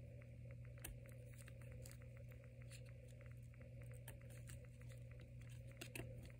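Faint, irregular soft ticks of Topps Chrome trading cards being slid and flipped through by hand, over a steady low hum.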